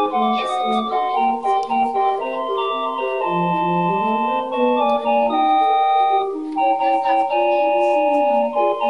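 Background organ music: a held melody over a bass line that bounces between two notes.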